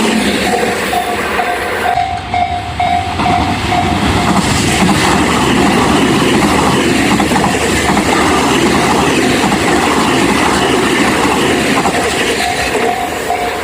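A train passes over a railway level crossing, its wheels clattering over the rail joints amid loud running noise. The crossing's electronic warning bell rings in quick repeated strokes during the first few seconds, is lost under the train's noise in the middle, and is heard again near the end.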